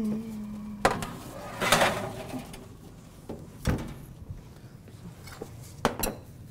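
Metal baking tray clattering as it is slid onto a wall-oven rack, then the oven door shutting with a knock a little later. A couple of light clicks near the end.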